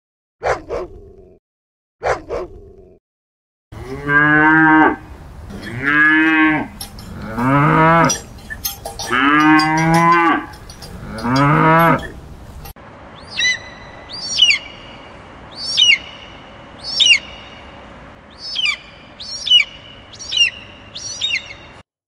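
Two short dog barks, then a cow mooing five times in long, drawn-out calls. After that comes a run of high, falling chirps repeating about once a second.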